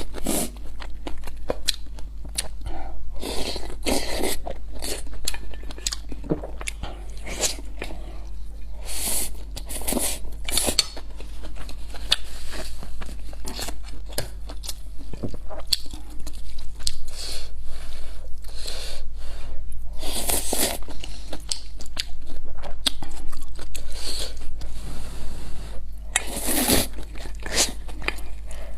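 Close-miked eating: irregular chewing, biting and smacking mouth noises from a person eating a meal.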